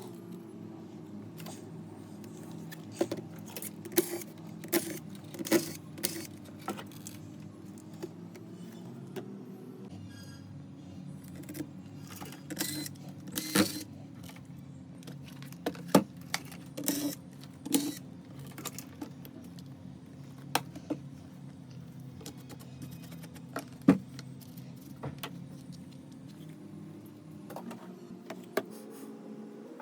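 Scattered sharp clicks and metallic clinks of small tools and parts being handled while a laptop is taken apart, over a steady low hum.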